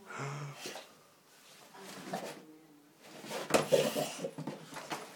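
A bullmastiff tussling with a vacuum cleaner: scattered light knocks early on, then a quick run of knocks, scuffs and rattles from about three seconds in.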